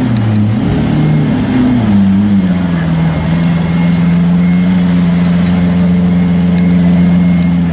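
Lamborghini Aventador's V12 engine, the revs rising and falling for the first couple of seconds, then running at a steady low pitch.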